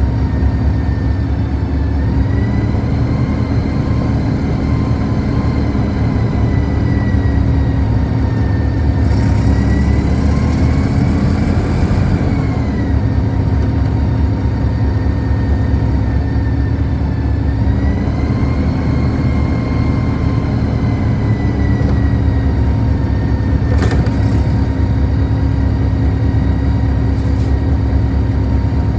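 Inside a moving city bus: a steady low rumble from the drive and the road, with a whine that rises in pitch as the bus speeds up and falls as it slows, several times over. A single sharp click comes late on.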